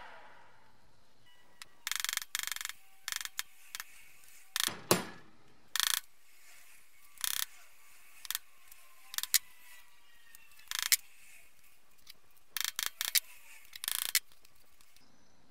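Small metalworking hammer striking steel parts on the anvil face of a cast engineer's vice: about a dozen sharp metallic taps and short flurries of taps, spaced irregularly.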